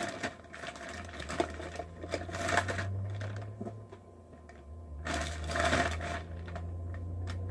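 Rummaging through a bag of makeup: cases and items rustle and clatter in uneven bursts, with a louder spell about five seconds in, over a low steady hum.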